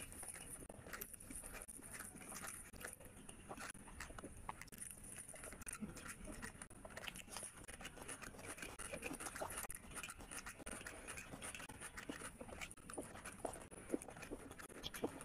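Close-miked eating sounds of a person eating rice and curry by hand: irregular wet chewing and lip smacks, with squelching as fingers mix the rice and curry on the plate, over a steady faint hiss.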